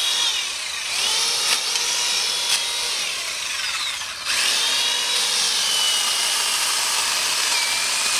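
Black & Decker Alligator corded electric lopper's small chainsaw motor running in bursts. It starts up about a second in and again about four seconds in, and its whine drops in pitch as the chain bites into a branch, then winds down.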